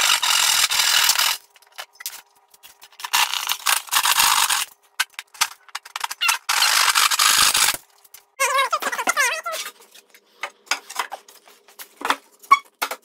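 Small hand saw cutting through plywood in three spells of quick strokes, finishing notches in a panel. Then wood rubbing and knocking as the notched panel is pushed into place in a plywood frame.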